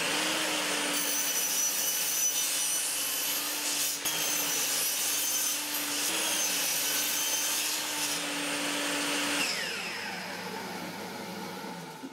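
Table saw running with its blade tilted to 7 degrees while wooden square stock is fed through it and cut at an angle. About nine seconds in the saw is switched off, and the blade spins down with a falling pitch.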